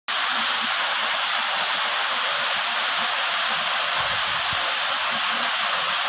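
Waterfall pouring: a steady, even rush of falling water that does not change.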